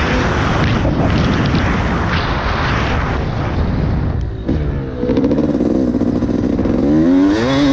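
Yamaha YZ250 two-stroke dirt bike engine revving up and down under a loud rushing noise. About four and a half seconds in the throttle briefly shuts off, then the revs climb again.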